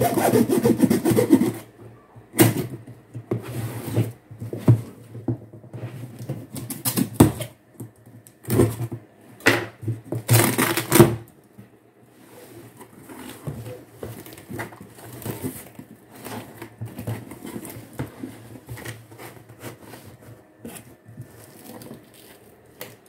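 Cardboard shipping box being opened by hand: tape pulled away and the flaps scraping and rustling, in several loud bursts over the first half, the longest about ten seconds in, then quieter rustling as the contents are handled.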